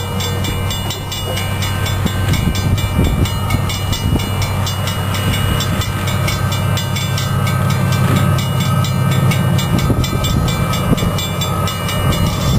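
Canadian Pacific GE Evolution-series diesel locomotives leading a freight train approaching from a distance: a steady low engine rumble under a rushing haze, slowly growing louder.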